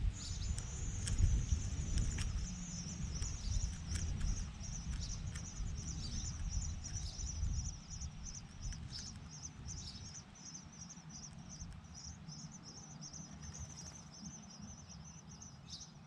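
Nestling birds inside a nest box begging for food: a rapid, steady series of short high-pitched calls, several a second, set off by an adult arriving at the box to feed them. A low rumble underlies the first half and then fades.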